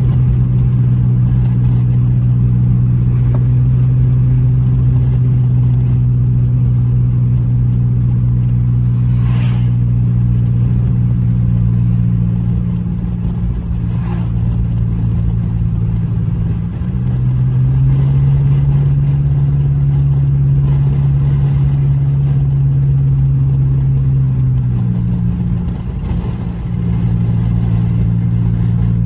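Honda Accord's engine and exhaust droning steadily while cruising at low speed. The hum rises a little in pitch for several seconds past the middle, as with a touch more throttle, then settles back.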